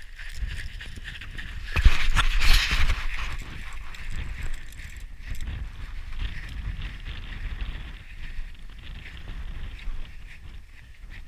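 Crampon-shod boots crunching step by step in snow, with wind buffeting the microphone. A louder rush of noise about two seconds in.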